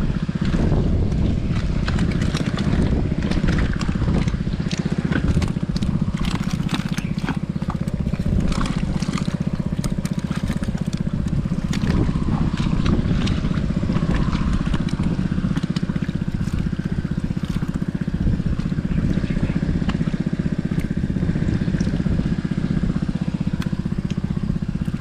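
Small pump engine running steadily while the fishpond is pumped dry, with irregular splashes and knocks of water on top.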